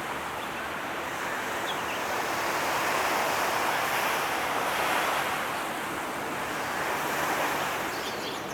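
Steady rush of waves and wind, swelling for a few seconds in the middle.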